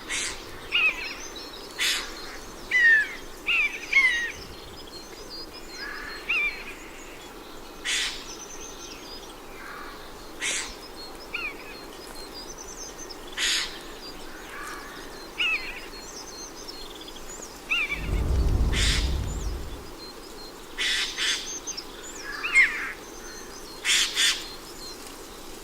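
Nature soundscape of birds calling and chirping over a steady background hiss, with short sharp sounds every couple of seconds. A low rumble lasts about two seconds roughly two-thirds of the way through.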